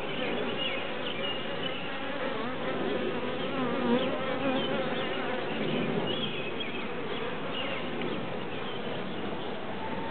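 A honeybee swarm clustered on a tree branch, buzzing steadily, with the hum of single bees flying close by rising and falling in pitch.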